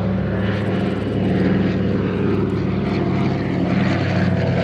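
Douglas DC-3's twin radial engines and propellers droning as it flies past, a loud steady drone whose pitch sinks slightly midway as the aircraft passes.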